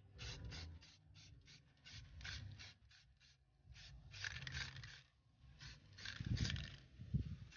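Aerosol spray can of clear coat hissing in many quick short bursts, several a second, as the nozzle is pressed in taps. A low rumble comes in about six seconds in.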